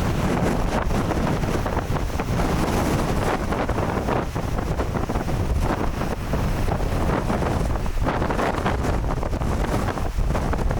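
Strong blizzard wind blowing across the microphone: a steady rush of noise with some gusting.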